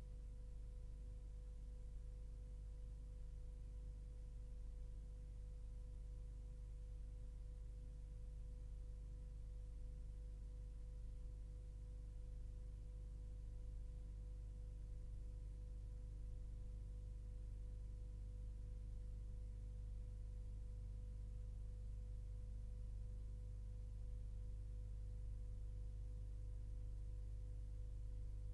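Steady low hum with fainter high tones above it and nothing else, the background noise of a blank stretch of recording.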